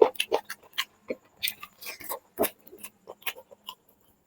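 Close-up eating sounds: wet chewing and lip-smacking of curry and rice, an irregular run of short smacks and clicks.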